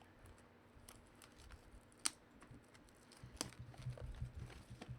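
Faint clicks and light rustling as a sealed trading-card mini box is worked open by hand, with two sharper clicks about two and three and a half seconds in.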